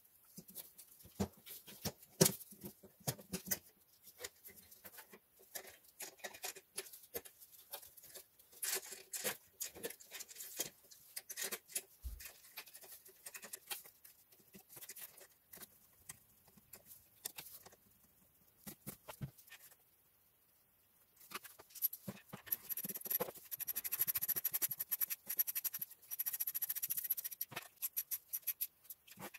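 Hands refitting a plastic diesel fuel filter housing into the engine bay: scattered clicks and knocks of plastic parts and hose connectors, then a denser run of rapid clicking in the last third.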